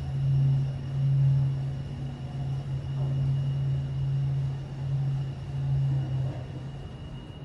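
Kone passenger lift running: a steady low hum with slow swells in loudness that dies away near the end, as the car comes to a stop.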